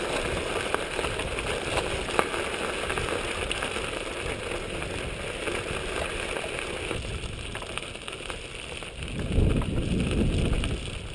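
Steady crunching and crackling of movement over a gravel path, with many small clicks, and a louder low rumble for about two seconds near the end.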